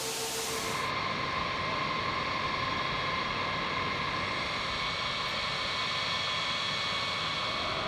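Jet aircraft engines running: a steady rushing noise with a steady whine over it. The highest hiss cuts off abruptly just under a second in.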